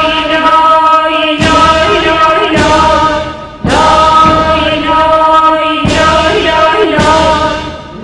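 Music: sustained choral chanting with deep drum strokes every second or two.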